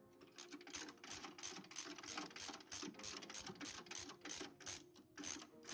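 Ratchet wrench clicking in a quick, even rhythm, about four clicks a second, as it backs out an engine mount bolt.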